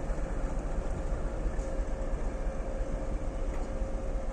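TEP70 diesel locomotive running as it moves slowly away along the track: its V16 diesel engine gives a steady running sound, with a thin steady tone through it.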